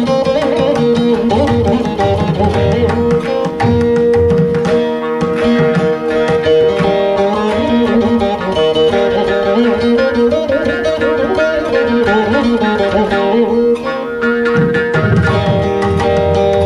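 Saraswati veena playing a Carnatic kriti in raga Begade, plucked melody over ringing drone strings, with mridangam strokes beneath that grow busier near the end.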